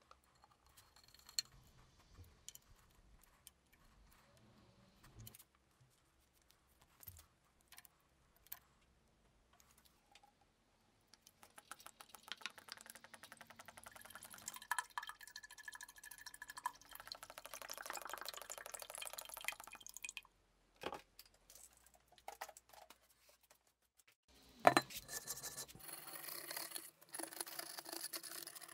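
Oil pouring from a jug into an open drill-press gearbox, splashing over the gears, steadily for several seconds midway. Before it come scattered light handling clicks. Near the end there is a sharp knock, then scraping on a rusty metal plate.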